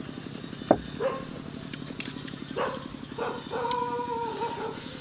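A dog whining: short whimpers about a second in and again near the middle, then a longer wavering whine. A sharp knock, the loudest sound, comes just before, over a steady low pulsing in the background.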